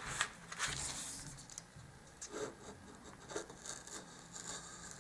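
Craft knife blade cutting through thick cardstock on a cutting mat: a series of short, faint scrapes with a few small ticks.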